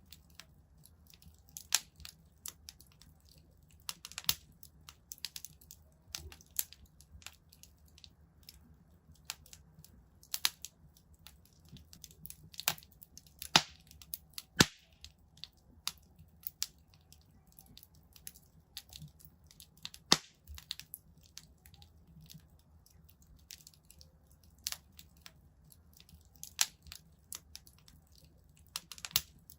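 Wood fire crackling in a fireplace: irregular sharp pops and snaps over a faint low rumble, with a few louder pops around the middle.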